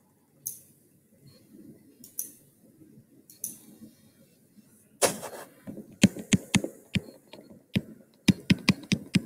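Pen stylus scratching and tapping on a tablet screen during handwriting: a few faint strokes at first, then from about five seconds in a quick irregular run of sharp clicks as the letters are written.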